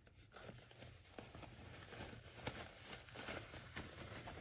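Faint, irregular rustling and scuffing of fabric handled by hand as a sewn bandana is pulled through its opening and turned right side out.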